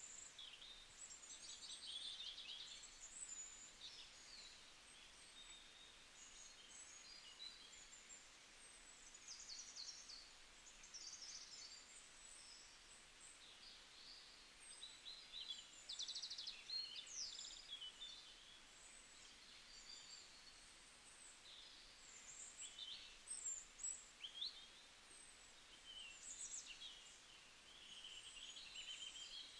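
Faint birdsong: many small birds chirping and trilling in short, overlapping phrases over a low steady hiss.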